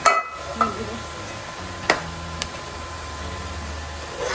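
A metal spoon stirs fried fish pieces through thick curry gravy in a nonstick pan, giving a few sharp clicks where it knocks the pan, over a soft sizzle and a steady low hum.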